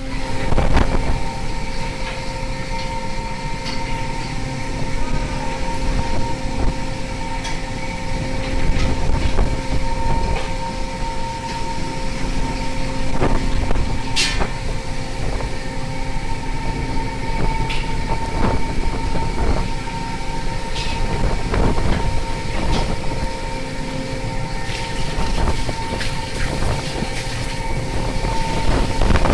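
Steady drone of a longline fishing vessel's engine and deck machinery running, with a constant hum and scattered sharp knocks and clanks, one loud one about halfway through.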